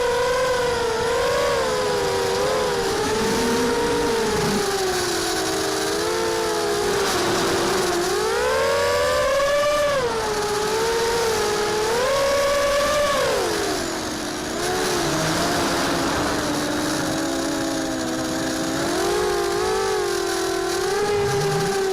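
Mini H quadcopter's brushless motors (Cobra 2204, 2300 KV) spinning 5x4 props, a whine of several close tones that rises and falls in pitch as the throttle changes, dropping lower and quieter for a moment about two thirds of the way through.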